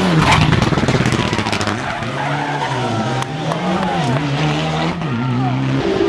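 Rally car engine at high revs, loudest as it passes very close by just after the start, then its note falls and climbs again several times as the driver lifts and shifts.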